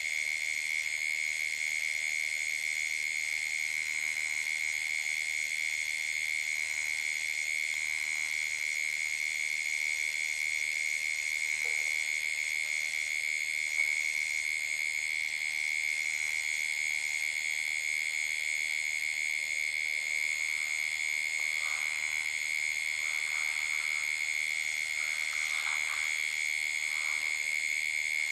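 Steady night chorus of calling insects and frogs, a continuous high-pitched trilling that holds one pitch, with finer chirping higher up. A single soft knock about halfway through.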